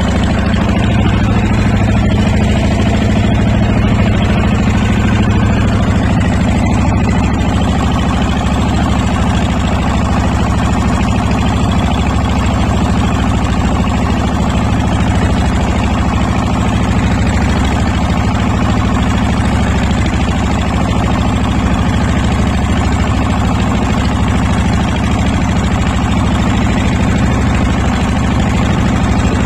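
A boat's engine running steadily at an even speed, giving a loud, unchanging drone.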